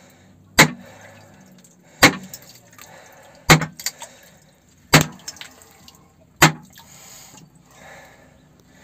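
Heavy hammer blows on the far end of a steel boring rod, five sharp knocks about one and a half seconds apart, driving the rod's tip out through the soil into the exit pit at the breakthrough of a horizontal bore.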